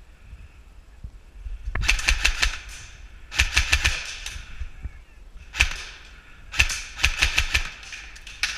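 Airsoft guns firing in short bursts of rapid sharp snaps: a burst about two seconds in, another a second and a half later, a single shot, then a longer burst near the end.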